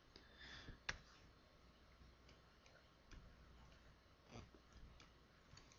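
Near silence, with a few faint clicks from a stylus tapping on a writing tablet as a number is written; the clearest click comes about a second in.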